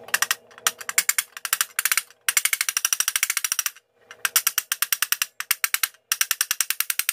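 Rubber mallet tapping a new crankshaft seal into an aluminium timing chain cover: rapid, evenly spaced taps of about ten a second, in several runs broken by short pauses.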